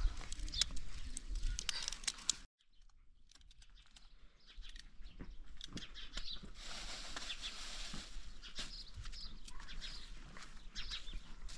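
Small birds chirping over outdoor rural ambience, with short sharp clicks of knives cutting raw carrots in the first couple of seconds.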